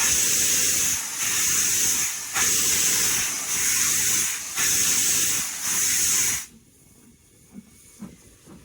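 Steam hissing loudly from BR Standard Class 4MT 4-6-0 locomotive 75069, surging in waves about once a second, then cutting off suddenly about six and a half seconds in.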